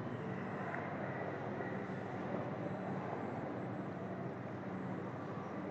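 Steady faint background hiss with a low hum: microphone room tone.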